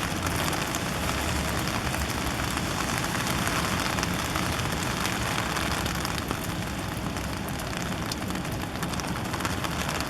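Heavy rain falling steadily on an open umbrella overhead: a constant hiss dotted with many small drop taps.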